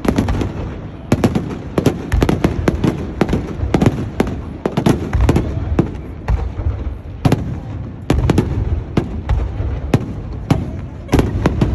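Fireworks going off in quick, irregular succession: many sharp bangs and crackles over a continuous low rumble, with a few short lulls.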